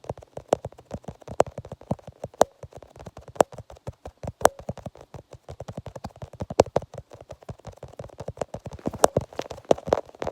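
Rapid, irregular clicking, several clicks a second, some sharper and louder than others.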